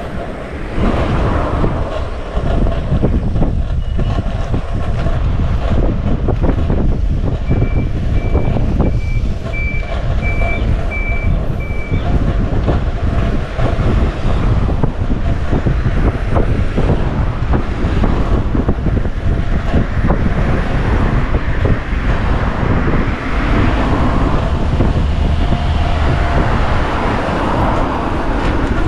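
Steady wind and road noise from riding along on a bike. About a third of the way in, a string of about seven evenly spaced short high beeps.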